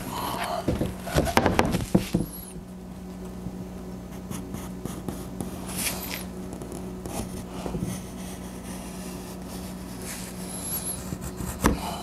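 A wooden seat board is handled and set down on a plywood bench with a few knocks, then a marker is drawn along the board's edge with faint scratching. A steady low hum runs underneath.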